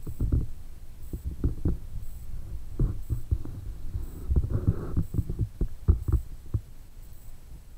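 Underwater camera handling noise inside a water-filled drum: irregular muffled low thumps and knocks as the camera moves and bumps about under water, with clusters of them about three seconds in and again around the middle.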